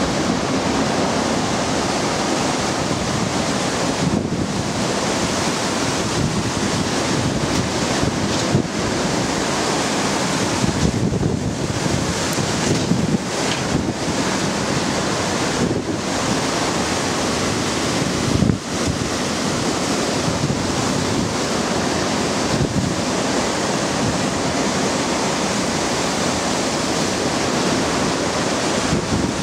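Hurricane-force wind gusting through trees, with rain, and the wind buffeting the microphone. It is a steady, loud rush with a few brief lulls.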